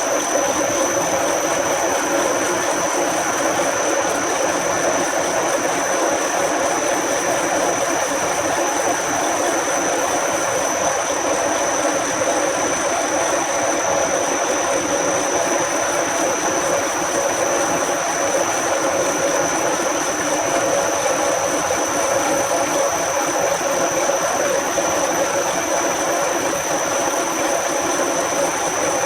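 Machine tool running steadily, a constant mechanical drone with a thin high whine held over it.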